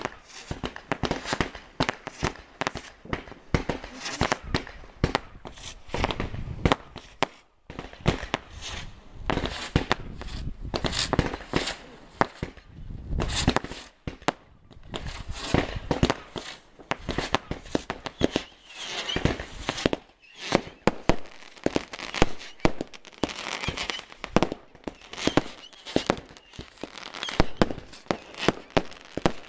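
Category 2 consumer firework batteries firing in quick succession: a dense, unbroken string of launch thumps and bursting bangs, with crackling from the stars.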